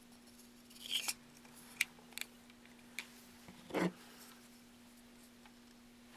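Hard resin parts of a prop pistol being handled and fitted together: a few sharp plastic clicks and taps, then a louder short scrape of parts sliding together just under four seconds in, over a faint steady hum.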